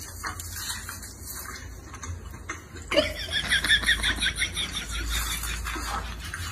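High-pitched giggling: a quick run of laughs begins about three seconds in, over a low steady hum.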